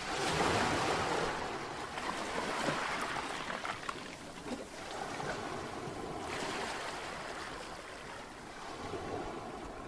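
Strong wind buffeting the microphone on an open beach: a steady rush of noise that swells and eases in gusts.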